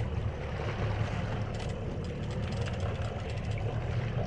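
Boat engine running slowly with a steady low hum, under a hiss of wind and water.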